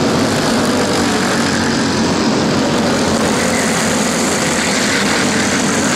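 Several racing go-kart engines running at speed together, a steady dense drone with no break.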